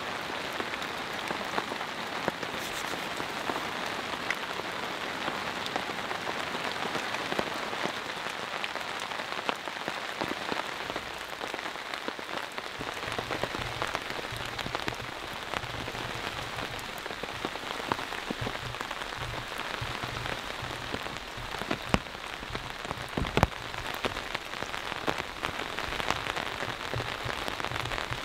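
Steady rain, neither hard nor light, pattering on a tarp overhead and on the wet forest floor, with many sharp single drops dripping from the tarp's edge.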